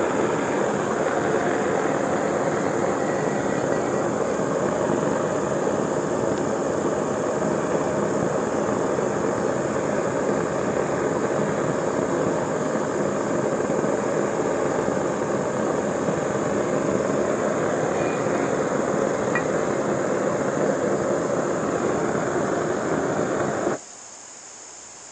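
Homemade gas-fired forge burner running with a steady roar of burning gas, which cuts off suddenly near the end.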